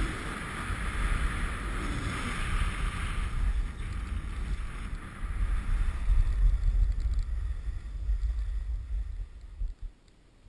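Wind buffeting the microphone of a camera on a rider speeding down a groomed ski run, with the hiss of snow sliding under the board or skis. The noise falls away sharply near the end as the rider slows.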